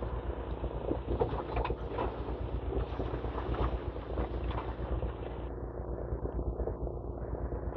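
Demolition excavator's engine running steadily, with irregular crunching and cracking as it breaks up the top of the building.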